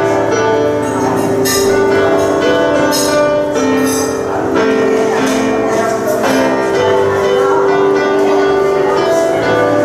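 Grand piano being played in an improvised piece, with held chords and repeated struck notes ringing over them.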